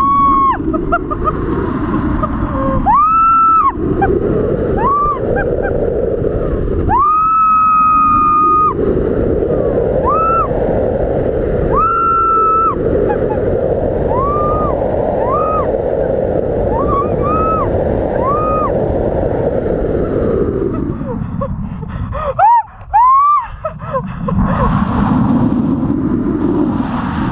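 A woman screaming over and over in high, arching cries, some short and one held for nearly two seconds, while a tandem paraglider spirals down fast. Heavy wind rush buffets the microphone throughout and eases off briefly a few seconds before the end.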